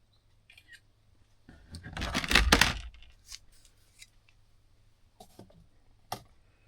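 Handling noise at the workbench: a loud burst of rustling and scraping about two seconds in, with scattered light clicks and taps before and after it.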